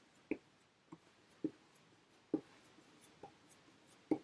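Flat 1-inch wash brush stroking across wet watercolor paper: about six short, separate brushing strokes at uneven intervals, as the paper is wetted all over with clean water.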